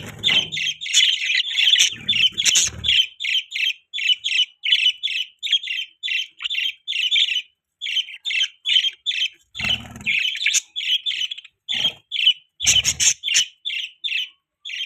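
Budgerigars chirping in a quick, even string of short high calls, about three or four a second, with a brief pause midway. A few short noisy bursts stand out among them.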